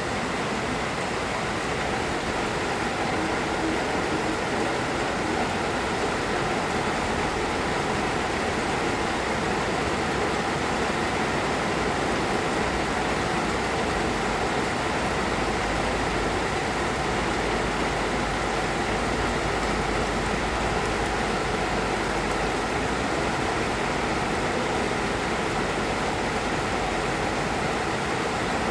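Moderate rain falling steadily, an even hiss without a break.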